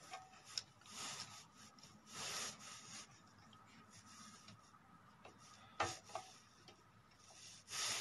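Handling noise from a plastic rocker power switch and its wires being worked into a sheet-metal panel: a few short rubbing scrapes and one sharp click about six seconds in.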